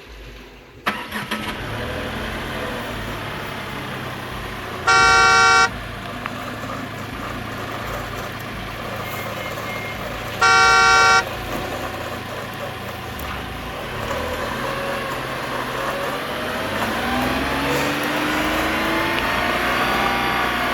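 Remote-control toy car's electronic horn sounding two short, loud beeps about five seconds apart, over a steady background hum. Near the end a whine starts rising and wavering in pitch.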